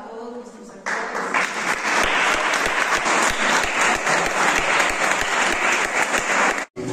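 Audience applauding with many hands clapping at once, starting about a second in and cut off suddenly near the end.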